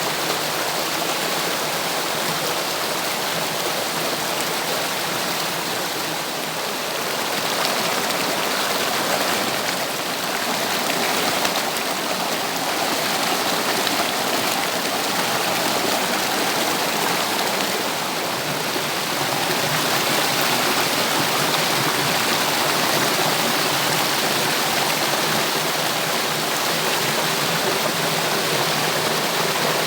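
Water rushing down a cascade: a steady, even rush of falling and flowing water.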